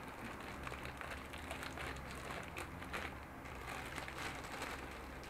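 Faint, irregular crinkling of a thin plastic parts bag being handled and opened, over a low steady hum.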